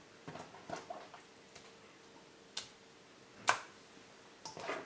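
Pieces of raw pork spare rib being placed into a stainless steel mixing bowl: about seven short, wet taps and clicks at uneven intervals, the loudest about three and a half seconds in.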